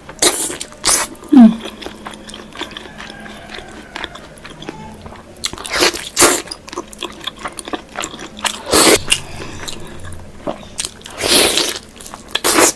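Close-miked eating sounds of pork being bitten and chewed, with loud crunchy bites at irregular intervals and quieter chewing between them.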